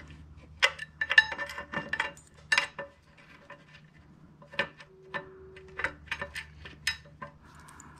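Clutch pressure-plate bolts and steel parts clinking and tapping as the bolts are fitted and started by hand through the pressure plate into the flywheel: a scatter of short metallic clicks, loudest in the first three seconds.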